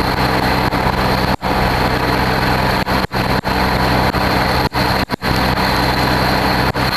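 A large engine running steadily at idle, with a thin steady high whine over it. The sound cuts out for a split second several times.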